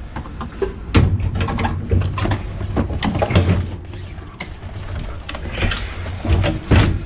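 Irregular knocks and clatter over a steady low hum that gets stronger about a second in, with brief snatches of voice.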